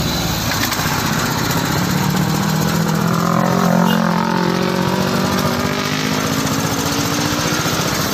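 Small motor-driven sugarcane juice press running, with a steady mechanical drone as its belt-driven flywheel turns the rollers and cane stalks are fed through and crushed. The drone swells and wavers in pitch a little midway.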